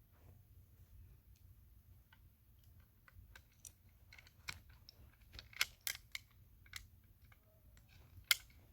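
Light, scattered clicks and taps of small metal and plastic toy-car parts being handled as a tiny screw is fitted into a 1/32 scale diecast Mini Cooper, with a cluster of louder clicks in the middle and one near the end.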